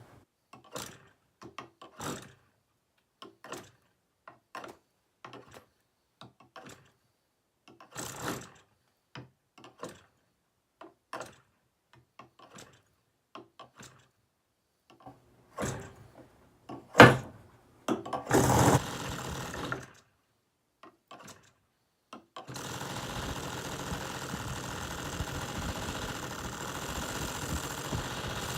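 Scattered light clicks and knocks of small metal parts being handled, with one sharp knock about two-thirds of the way in, then a steady rapid buzzing that lasts about six seconds near the end: the rebuilt Thunder Tiger Pro 60 model glow engine running.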